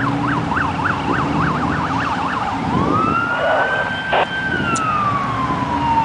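Emergency vehicle siren in a fast rising-and-falling yelp that switches, a little under three seconds in, to a long wail that rises, holds, then slowly falls. A steady low vehicle rumble sits underneath.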